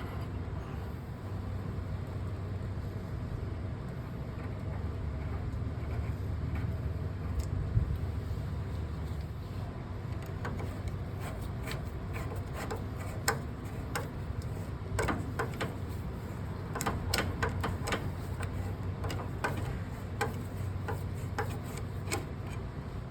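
A steady low hum, then from about halfway through a run of irregular sharp clicks and clinks, like metal parts and hand tools being handled.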